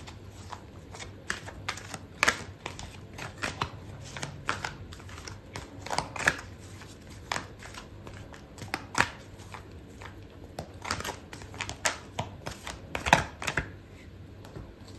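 A deck of oracle cards being shuffled by hand: irregular crisp snaps and slaps of cards against each other, some louder than others, over a faint low hum.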